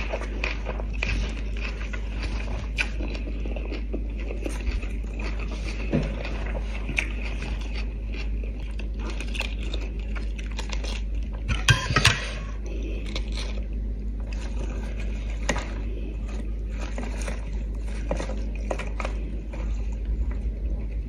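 A person chewing food close to the microphone, with small clicks, rustles and the handling and tearing of fresh lettuce leaves, over a steady low hum. A brief, louder rustle comes about twelve seconds in.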